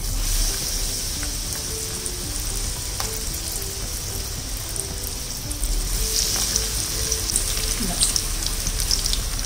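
Batter-coated brinjal slices deep-frying in hot oil: a steady sizzle with scattered crackles, growing louder about six seconds in as more slices go into the oil.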